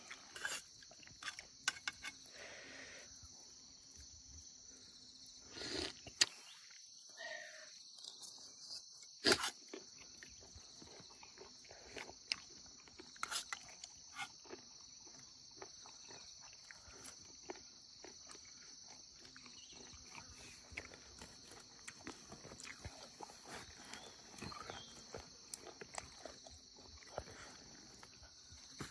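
Quiet eating sounds: scattered clicks and scrapes of a spoon in a metal cooking pot, over a steady high-pitched insect buzz.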